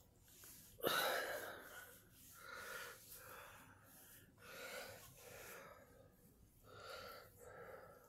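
A woman coughs sharply once, about a second in, then breathes hard in a run of short, noisy breaths, about one a second.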